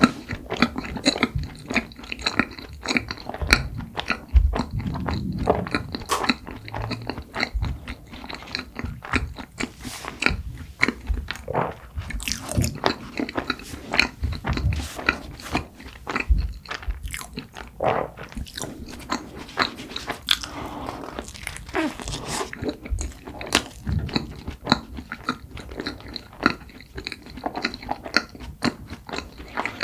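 Close-miked chewing and biting of cream-filled red bean bread: a dense, irregular run of short mouth clicks and smacks.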